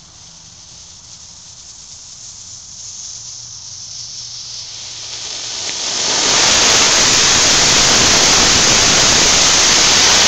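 Rocket candy (sugar propellant) motor with a 3/8-inch core and 1/8-inch nozzle throat burning on a static test: a hiss that grows over the first six seconds, then jumps to an extremely loud, steady rushing hiss, easing off right at the end.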